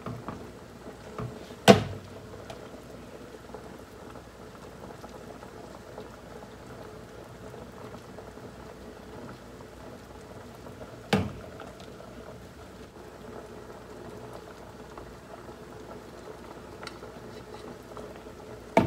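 A pot of azuki beans simmering, bubbling steadily, while a metal ladle skims off the scum. The ladle clinks sharply about two seconds in, again about eleven seconds in, and once more at the very end.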